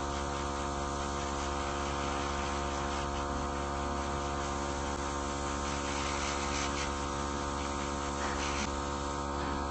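Nail airbrush compressor running with a steady hum and a hiss of air as paint is sprayed.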